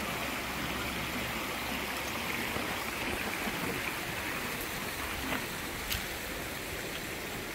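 Mountain trout stream running steadily, with two brief clicks about five to six seconds in.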